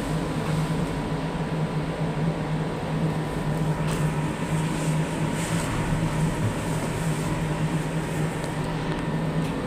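Steady low machine hum inside an enclosed observation wheel gondola, with a faint steady high tone over it.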